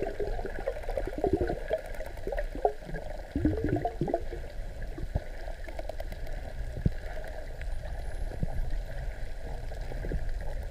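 Underwater ambience through a camera in the sea: uneven gurgling and rushing of water as the camera moves, with scattered faint clicks.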